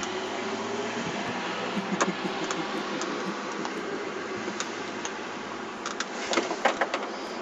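Steady road and engine noise of a car driving, heard from inside the cabin, with a few short clicks and knocks, more of them near the end.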